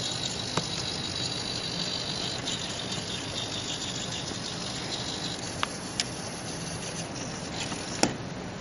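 Hobby servo motors of a small robot arm whirring as the arm swings through its full reach. A high whine sounds in the first three seconds or so, and a few sharp clicks come later.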